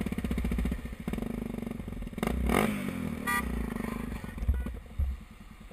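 A vehicle engine running, made of fine rapid pulses, strongest in the first two seconds and fading toward the end, with a short pitched tone about three seconds in.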